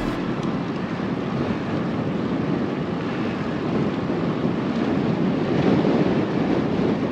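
Steady wind rushing over the microphone of a camera on a moving bicycle, with no breaks or sudden sounds.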